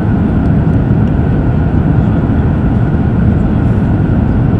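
Steady, deep rush of cabin noise inside an Airbus A350-1000 airliner on approach with its flaps extended: airflow over the fuselage and the Rolls-Royce Trent XWB engines, heard from a window seat.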